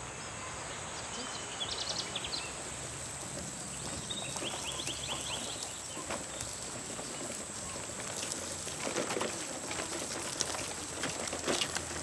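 Outdoor ambience: birds chirping in short quick runs over a steady high-pitched whine, with scattered clicks and knocks, the loudest near the end.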